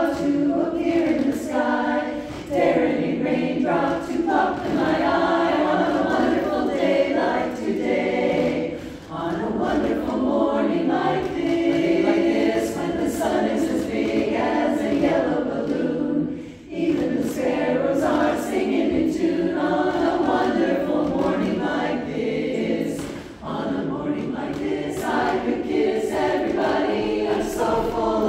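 A women's a cappella chorus singing together, with short breaks between phrases.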